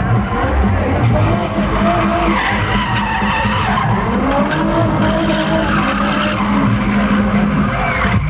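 Nissan 350Z drift car sliding sideways, its engine revving up and down and its rear tyres skidding and squealing, with music playing along.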